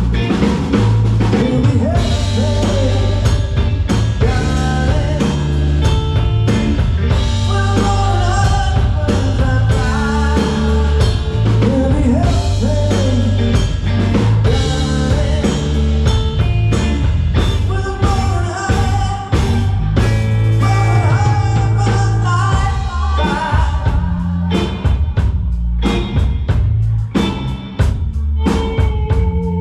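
Live band playing a slow, soul-style blues-rock song on electric guitars and drum kit.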